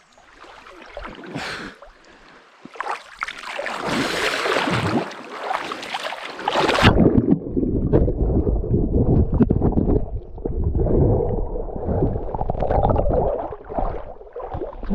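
Water splashing and sloshing from a person swimming. About seven seconds in, the sound turns suddenly muffled and low: churning, gurgling underwater noise heard through the submerged action camera's microphone.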